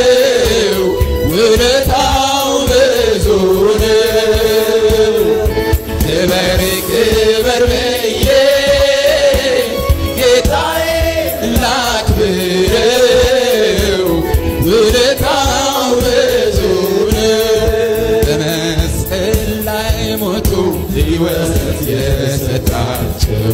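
Live gospel worship song in Amharic: a man sings the lead melody into a microphone in long rising and falling phrases, with other voices joining in, over band accompaniment.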